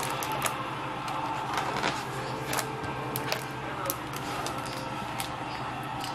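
Paper pages of a picture book being turned and handled: scattered small clicks and crinkles over a steady low hum.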